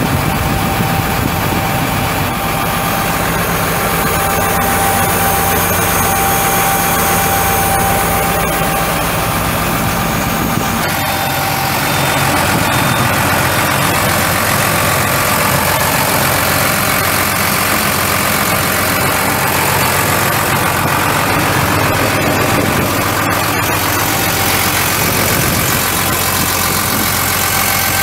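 FPT 6.7-litre six-cylinder diesel of a 2015 Case IH Farmall 140A tractor running steadily at idle. Its low rumble thins out about eleven seconds in.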